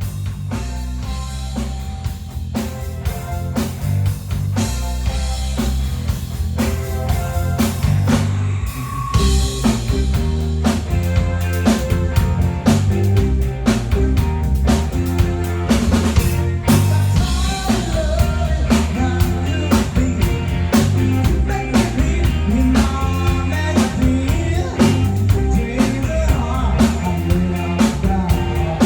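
Rock band playing: a drum kit keeps a steady beat over bass and electric guitar, building in loudness over the first ten seconds or so.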